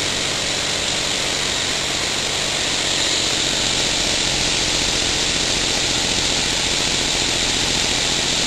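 Small homemade elbow steam engine running fast on compressed air: a steady hiss of exhausting air with a fast mechanical whir, growing slightly louder about three seconds in.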